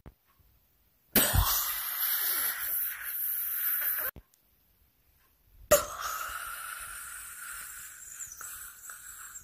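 Loud retching and vomiting sounds. A harsh heave lasts about three seconds, and after a short pause comes a sudden gush that slowly fades away.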